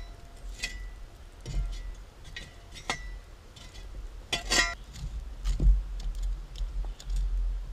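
A series of light clinks and knocks of hard objects being handled, several of them ringing briefly, with the loudest cluster about halfway through, over a low rumble.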